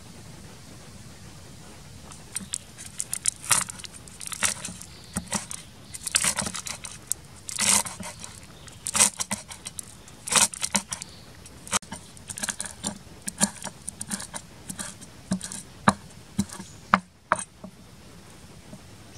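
A cleaver chopping through rolled green leaves and striking a wooden chopping board: quick, irregular chops, about one or two a second, which stop a little before the end.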